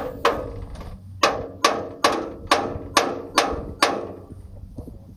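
Hammer blows on metal inside a combine harvester's header auger: about nine sharp ringing strikes, roughly two a second, stopping about four seconds in, over a faint low hum.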